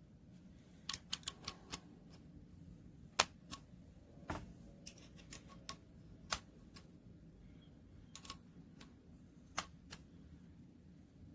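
Irregular light clicks and taps of small hard objects being handled, with a quick run of about five clicks a second in and a few louder single taps spread through the rest.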